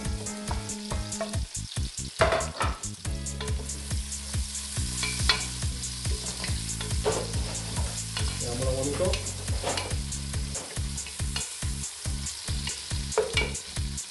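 Chopped onions frying and sizzling in hot oil with garlic and chillies in an aluminium pot, stirred with a wooden spatula that scrapes and knocks against the pot in frequent short clicks.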